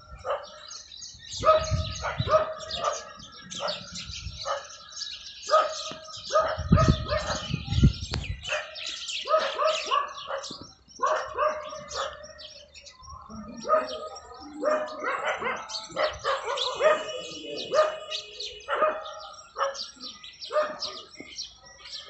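Outdoor animal chorus: birds chirping and calling throughout, mixed with many short, repeated calls that sound like dogs barking. A low rumble comes twice in the first eight seconds.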